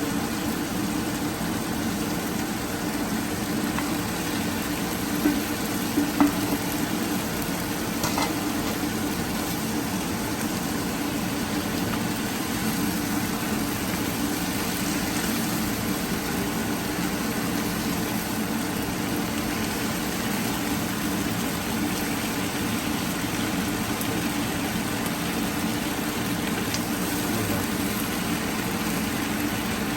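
Fish frying in a hot pan: a steady sizzle, with a few short clicks of a utensil against the pan around five to eight seconds in.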